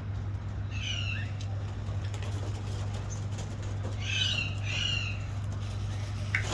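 Caged aviary birds calling, with a short chirp about a second in and two more chirps in quick succession around four to five seconds in, over a steady low hum.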